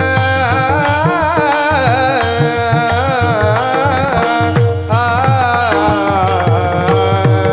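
Varkari kirtan music: a voice sings a long melodic line that bends up and down, over the steady rhythm of a mridang drum.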